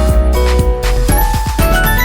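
Background music with a steady beat, a strong bass and bright bell-like notes.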